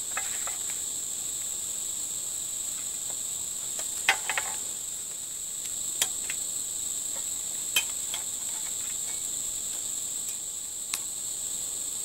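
Steady high insect chorus, crickets and the like, with a handful of sharp clicks and knocks from a trail camera in its security case being handled and set against a tree trunk.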